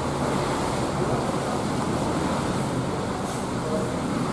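Diesel engine of a coach bus running close by at low speed, a steady low drone.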